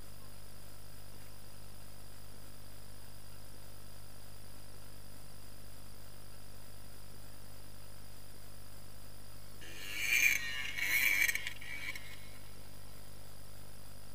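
Yamaha DT 125 two-stroke enduro bike ridden at a log and going down: about ten seconds in, a burst of about two seconds of engine revving and scraping, with two louder peaks, over a steady low hum.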